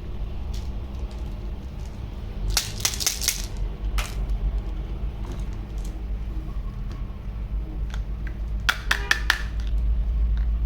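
Quick clicks and clatter of small hard objects being handled, in two short bursts about six seconds apart with a single click between them, over a steady low hum.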